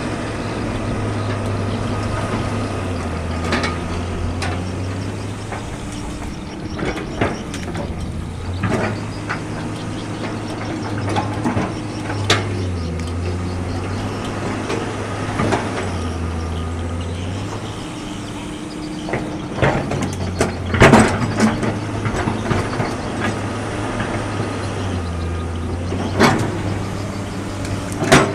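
Excavator's diesel engine running steadily, its note dipping and recovering every few seconds, with scattered metallic clanks and knocks.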